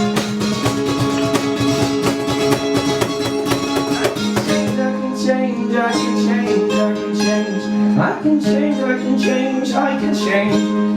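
Live band music: a strummed guitar with held notes and some singing.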